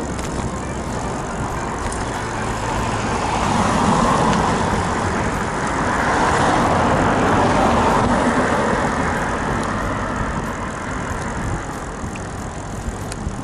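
Steady wind and road rumble on a bicycle-mounted camera while riding, with passing cars swelling the noise twice, around four seconds in and again from about six to nine seconds.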